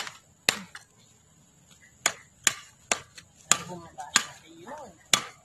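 Sharp hammer strikes on an aluminium garden edging strip being driven into the soil: about eight knocks, two at the start, a pause, then a run of six with uneven gaps.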